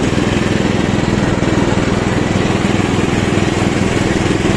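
Ride-on lawn tractor mower's 12.5-horsepower engine running steadily as it mows, with a fast, even engine beat.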